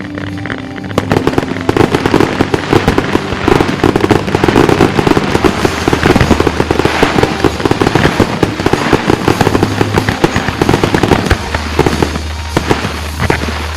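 A rapid fireworks barrage: dense volleys of bangs and crackling breaks that start about a second in and thin out near the end, with music playing underneath.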